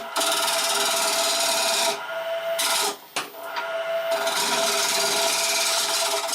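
Wood lathe running with a steady whine while a turning tool cuts into a spinning oak blank. The tool makes a long stretch of rasping cutting noise, two short bursts in the middle, then another long stretch.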